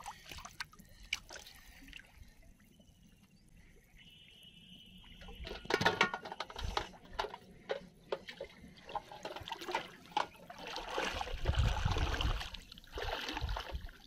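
Water splashing and sloshing as a person wades through shallow floodwater, pushing an aluminium pot along the surface. It is light at first, with louder, irregular splashing from about six seconds in and again near the end.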